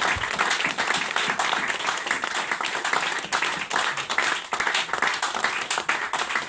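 Live noise music: dense, crackling electronic noise from an electric guitar laid flat and run through electronics, a thick unbroken crackle of close-packed clicks.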